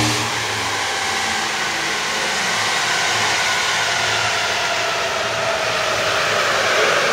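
Chevrolet Silverado pickup spinning at speed on a chassis dynamometer, heard as a loud steady rush of tyres and rollers with the engine, with a faint whine slowly falling in pitch.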